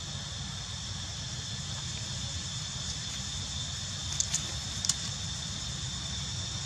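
Steady outdoor ambience: a constant high hiss over a low rumble, with three short sharp clicks a little over four seconds in.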